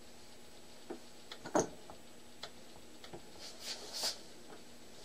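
Light, irregular clicks and ticks from hands working the feed handles of a small hobby milling machine, the loudest about a second and a half in and a short scrape near the end, over a faint steady hum.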